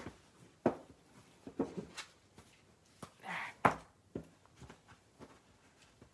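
Handling sounds of a handmade paper journal and ribbon being worked at a tabletop: a few sharp knocks, the loudest about three and a half seconds in, with light rustling between.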